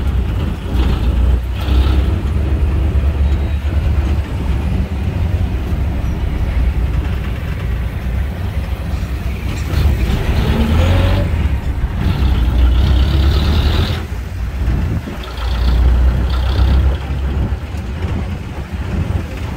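Jeepney's diesel engine and road noise heard from inside the open passenger cab, a steady low rumble, with the engine note rising as it speeds up about ten seconds in.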